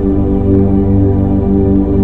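Ambient new-age sound-healing music: a steady drone of held low tones with rich overtones, unchanging throughout.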